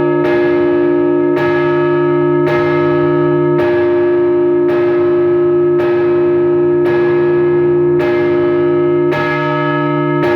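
Russian Orthodox church bells rung by a bell-ringer for a funeral service: several bells struck together in an even rhythm, about one stroke a second, over the ringing tone of a deeper bell.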